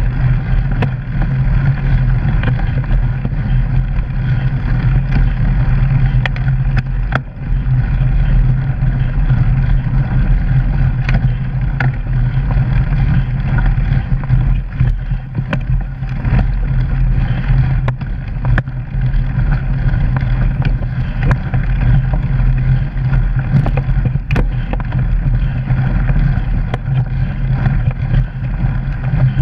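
Mountain bike riding along a gravel forest trail, picked up by a camera mounted on the bike: a steady loud rumble of tyres on the rough ground, with scattered knocks and rattles from the bumps.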